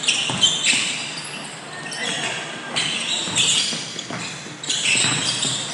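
Basketball game sounds in a large gym hall: a ball bouncing on the hardwood court and sneakers squeaking in short high bursts as players run.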